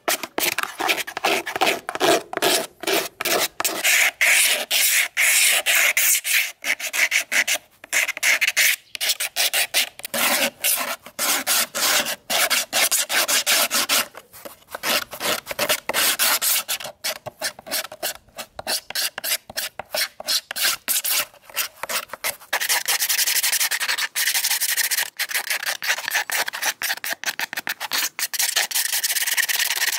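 Abrasive rubbing on a rusty fan part: quick back-and-forth strokes with short gaps between them, becoming a steadier, more continuous rubbing about three-quarters of the way through.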